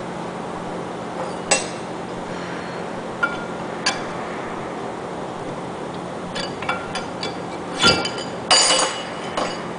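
Steel wedges clinking and knocking against a centrifugal pump's cast stuffing box as they are worked in to pry it loose from the power end: a few single sharp, ringing metal clinks in the first four seconds, then a quicker run of clinks and knocks in the last few seconds, the loudest about eight seconds in. A low steady hum sits underneath.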